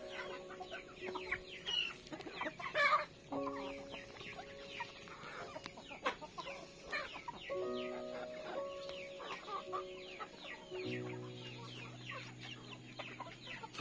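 A flock of chickens clucking and giving short calls while feeding on scattered rice grain, the loudest call about three seconds in. Background music with held notes plays underneath.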